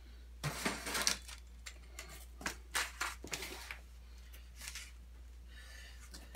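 Plastic hardware bags and a plastic parts container being handled: crinkling and light clicks in irregular bursts.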